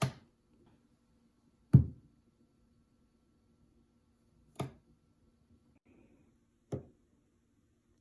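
Four dull knocks of fruit bonked against a hard kitchen countertop, the second the loudest, with a faint steady hum underneath.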